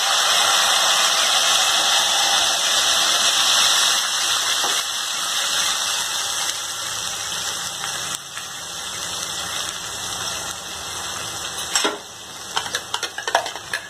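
Wet ground masala paste poured into hot oil in a steel kadai, sizzling loudly, the hiss slowly dying down as the oil cools under the paste. Near the end come a few sharp metal clinks and scrapes as the last paste is tipped out of the steel mixer jar against the pan.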